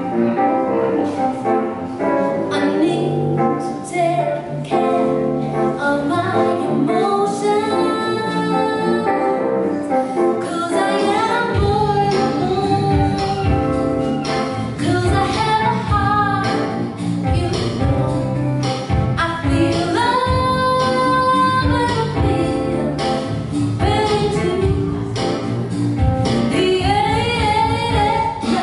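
A woman singing a melody over a DJ's electronic backing track. A deep bass line comes in about twelve seconds in, and she holds one long note about twenty seconds in.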